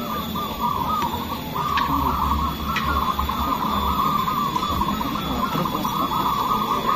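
Many caged zebra doves (perkutut) cooing at once, a dense overlapping chorus of short, rhythmic coos with no break.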